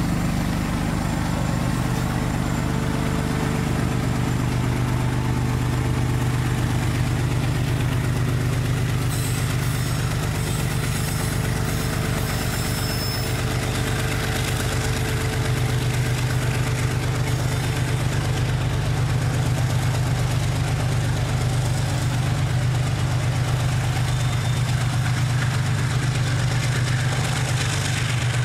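A steady, loud engine drone with a strong low hum, holding even throughout.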